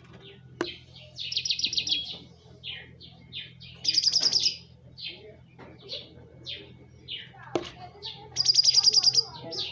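Small songbird calling: a string of short high chirps, broken three times by a loud rapid trill of evenly spaced notes, about a second in, near the middle and near the end. A sharp click sounds twice, and a faint low hum runs underneath.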